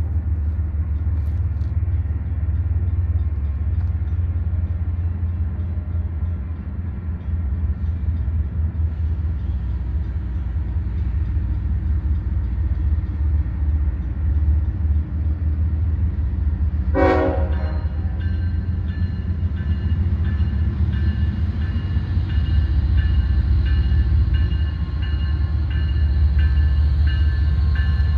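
Union Pacific manifest freight train rolling, with a heavy steady rumble. About two-thirds of the way through comes a short horn blast, followed by a high ringing that pulses regularly.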